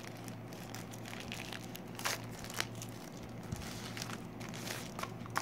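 Thin clear plastic bag crinkling and crackling as it is handled and opened to take out a pair of earphones, with a few sharper crackles scattered through.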